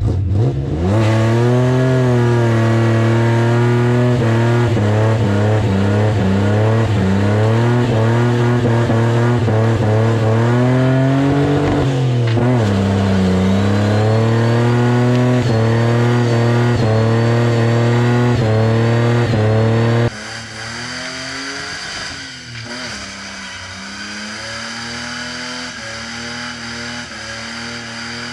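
Car engine revving hard and held at high revs during a burnout, its pitch wavering up and down with a brief dip about halfway through. About two-thirds of the way in the sound drops suddenly to a quieter level and the engine keeps running at varying revs.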